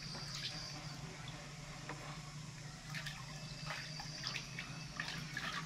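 Water lapping and splashing gently in a plastic basin as a baby monkey is washed by hand, with small scattered splashes and drips.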